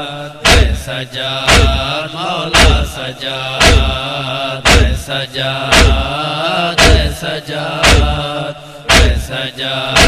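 Noha introduction: a sustained, wordless chorus chant drones over a heavy, regular beat struck about once a second.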